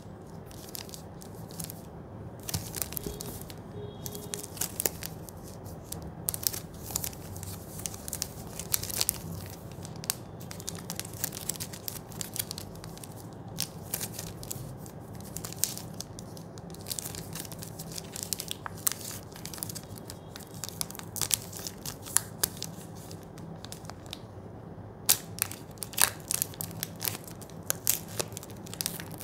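Foil-lined plastic wrapper of a Cadbury Dairy Milk chocolate bar being handled and torn open, crinkling and crackling in irregular bursts. A steady low hum runs underneath.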